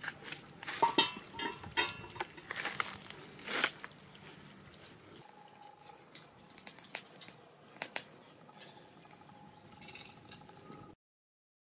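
Clatter and sharp knocks of a metal frying pan being handled at a wood fire, thickest in the first four seconds, then only sparse clicks; the sound cuts out about a second before the end.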